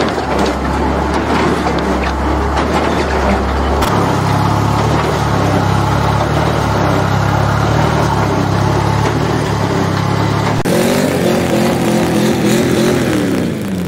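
The Bucyrus-Erie 20-W drilling rig's four-cylinder Red Seal deck engine running steadily. The sound changes abruptly twice, about four and eleven seconds in, and near the end the engine's pitch rises and then falls back as it revs up and eases off.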